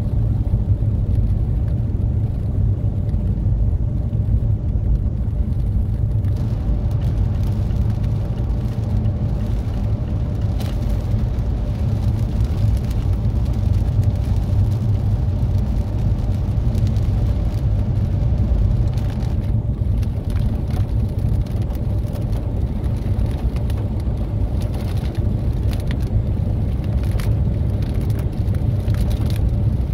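Steady road noise of a Mazda 3 driving on a rain-wet road, heard from inside the car: a low rumble of tyres and engine. From about six seconds in, a hiss of tyres on the wet surface joins it.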